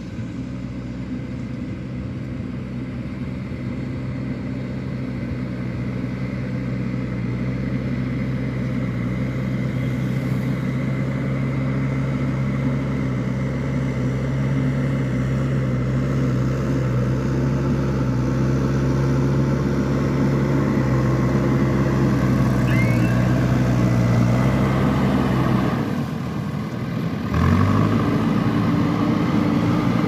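Diesel engine of a JCB backhoe loader running steadily and growing louder as the machine approaches. Near the end the engine note dips briefly, then comes back at a higher pitch.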